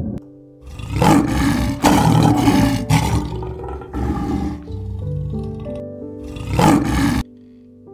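Male lion roaring, a series of loud calls, the last ending abruptly near the end.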